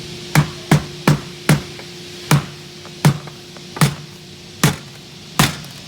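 Rubber mallet striking a polycarbonate wedge to knock panel trim out of a door. There are nine sharp knocks, quick at first, then about one every three-quarters of a second.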